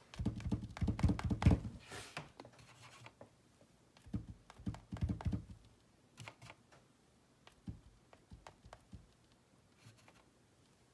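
Light, rapid taps of a paintbrush's upturned handle dabbing dots of acrylic paint onto a stretched canvas, each tap a dull thud from the canvas. The taps come in two quick flurries in the first half, then as scattered single taps.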